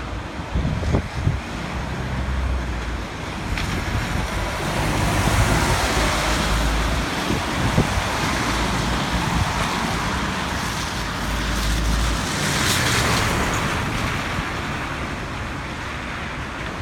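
Wind gusting through a common ash tree, a rushing hiss that swells and eases in gusts, with wind buffeting the microphone.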